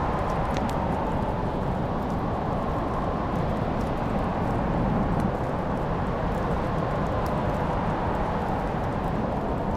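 Crackling wood fire: faint scattered pops and snaps over a steady low rushing noise.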